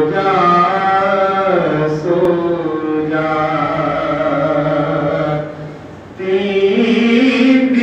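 A man's voice chanting a nauha, a Shia mourning elegy, in long held melodic phrases into a microphone, with a short pause just before six seconds in.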